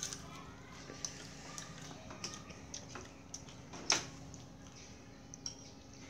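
Spoons and forks knocking against plates and bowls during a meal: scattered light clicks, with one louder clink about four seconds in.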